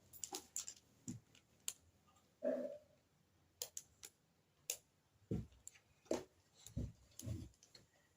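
Small plastic mask connectors and packaging being handled: scattered light clicks and taps, with a few soft thumps in the second half.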